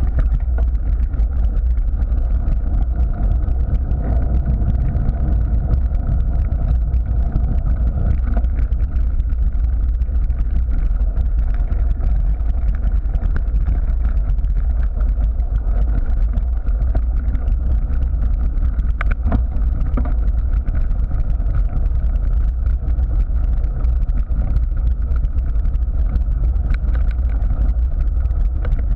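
Wind buffeting and tyre rumble picked up by a camera mounted on a moving full-suspension mountain bike: a steady, heavy low rumble, with a couple of sharp knocks past the middle.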